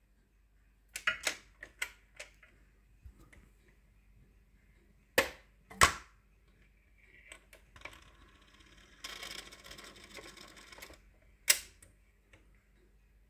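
Dual 1006A automatic record changer running its change cycle. A run of mechanical clicks comes first, then two loud clunks about five seconds in as an LP drops from the spindle onto the platter. About three seconds of scraping mechanism noise follow, and the cycle ends with one sharp click.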